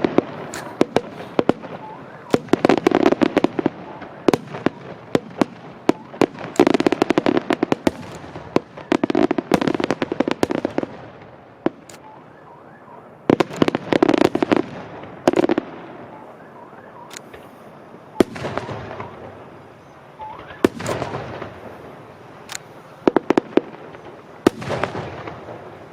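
Aerial firework shells bursting overhead: clusters of sharp bangs and crackling, a new volley every few seconds with short lulls between.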